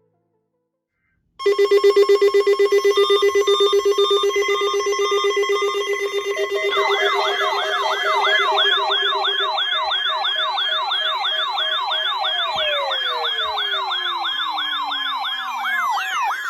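Electronic warning alarm made of layered siren tones. A steady buzzing tone starts after a brief silence, with beeping tones over it. A fast yelping siren joins about seven seconds in, rising and falling about three times a second. The buzz then slides down in pitch and fades, and falling siren sweeps come in near the end. It is the warning alarm of a weather radio alarm test.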